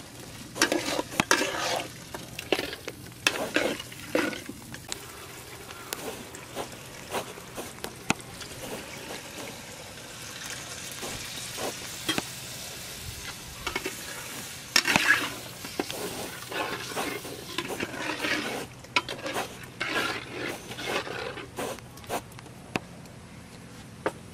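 A long metal spatula scraping and stirring thick khichuri in a heavy metal pot over a wood fire. The strokes come in two spells of quick scrapes and clatter, one about a second in and another from about fifteen seconds in. Between them the pot simmers with a low sizzle and a few clicks.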